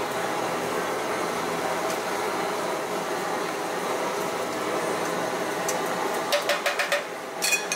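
Steady background hum, then about five quick sharp taps some six seconds in and a louder clatter near the end: metal spatulas striking the steel cold plate of a rolled ice cream stall.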